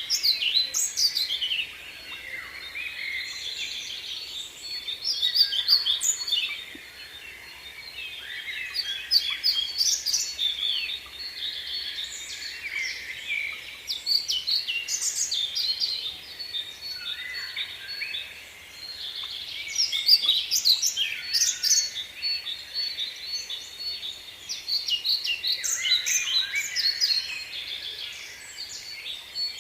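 Several small birds chirping and twittering continuously, their calls overlapping, with louder flurries every few seconds.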